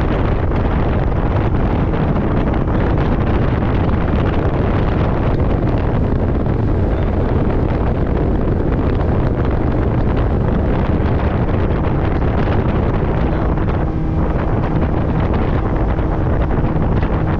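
Wind buffeting the microphone over a boat's outboard motor running steadily at speed, the whole loud and unchanging.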